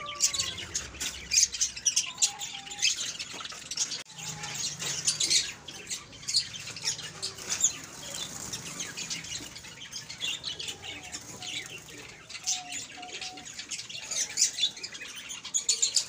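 A flock of caged Java sparrows chirping, with many short, high calls overlapping throughout.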